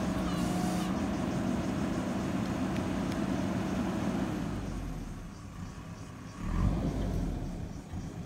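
Diesel engine of a JCB 3DX backhoe loader working under load as the backhoe arm digs, a steady engine note that eases off after about four seconds. A short louder surge follows about six and a half seconds in.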